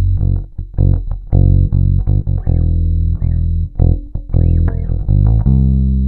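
Epiphone Thunderbird Classic IV electric bass (newer production run) played in a riff of plucked notes, with both pickup volumes and the tone knob turned all the way up. Short gaps separate the phrases.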